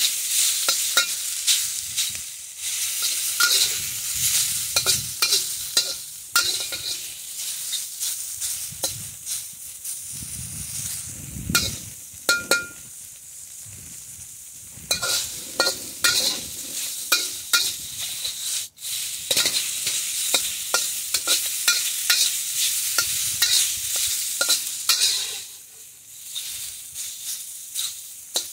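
Diced food sizzling in a hot wok while a metal wok spatula scrapes and turns it, with frequent clicks and scrapes of the spatula against the pan. The stirring eases off for a few seconds around the middle and again near the end, leaving mostly the sizzle.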